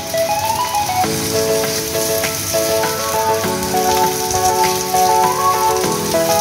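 Background music of sustained chords that change about every two and a half seconds, over a steady rain-like hiss.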